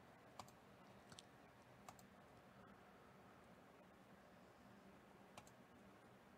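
Near silence: room tone broken by a handful of faint clicks from working a computer, spread irregularly with a longer gap before the last one.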